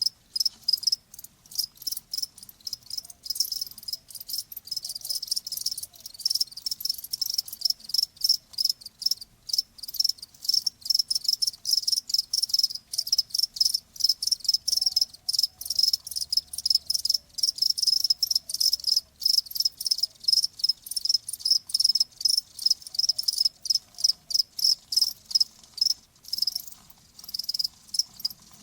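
Crickets chirping: high-pitched chirps repeated rapidly, several a second, steady throughout.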